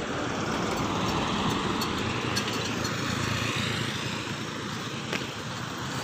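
Road traffic passing close by: a small motorcycle driving past, with steady engine and tyre noise.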